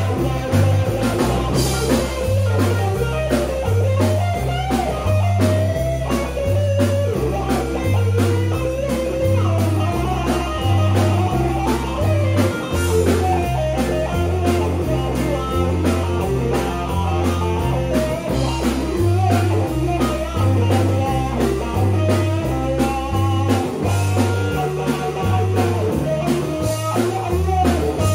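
Blues band playing live: electric guitars over a repeating bass line, with a steady beat.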